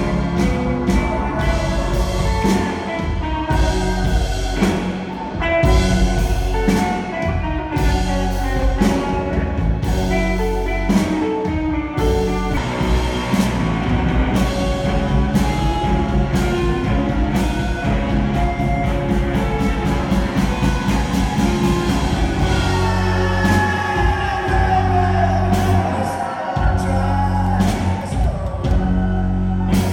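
A rock band playing live with drums, guitar and singing; from about halfway through a high guitar line slides and bends over the beat.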